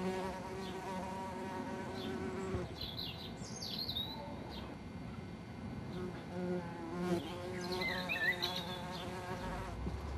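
White-tailed bumblebees buzzing in flight with a steady low hum that stops about two and a half seconds in and returns for about a second around six to seven seconds. Birds chirp a few times, around three to four seconds and again near eight seconds.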